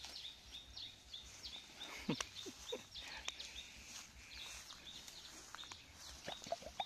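Small birds chirping over and over in a quick high repeated call, with a few short knocks and scuffs, about two seconds in and again near the end.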